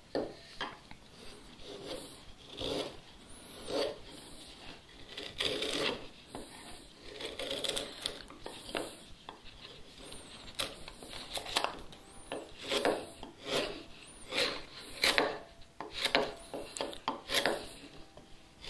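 A freshly sharpened 3/4 inch chisel paring thin shavings from a pine board by hand: a run of short slicing strokes, about one a second. The edge is keen and cuts with almost no effort.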